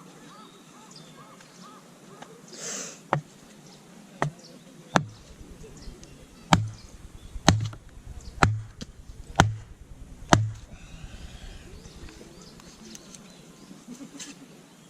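Firewood being split: eight sharp wooden strikes, a couple of single ones and then a run of about one a second.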